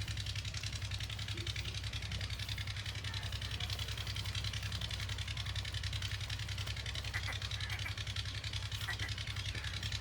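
An engine running steadily at idle, with a fast, even chugging beat.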